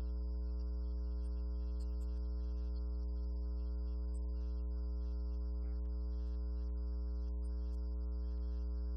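Church organ holding one sustained chord that does not change, over a steady low electrical hum.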